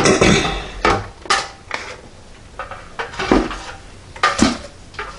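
NuWave countertop oven's plastic dome lid and control head being handled and set back onto the base: a series of sharp plastic knocks and clatters, about half a dozen, with quieter handling noise between them.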